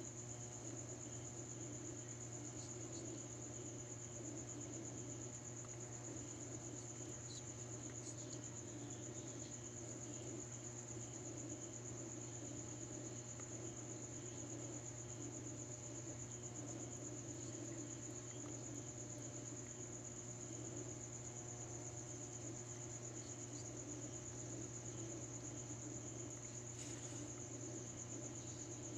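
Crickets trilling steadily in a high, even chorus, over a low steady hum.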